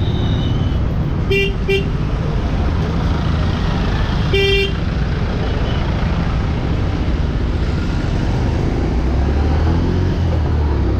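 Motorcycle engine running at low speed in street traffic, with a vehicle horn giving two quick short beeps about one and a half seconds in and a longer beep a few seconds later. Near the end the engine note rises as the bike speeds up.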